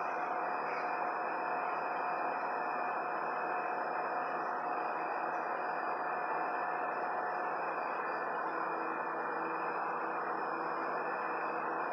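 Steady machinery noise, a constant even rushing with a few faint steady whine tones and no change in level.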